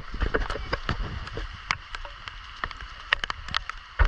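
Heavy rain: a steady hiss with many sharp, irregular taps of raindrops striking close to the microphone.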